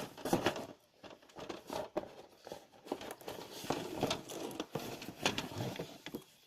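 Irregular rustling and small clicks of things being handled, with plastic packaging crinkling.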